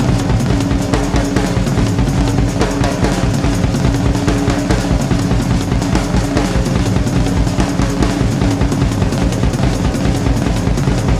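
Background music with a fast, steady drum-kit beat and bass drum.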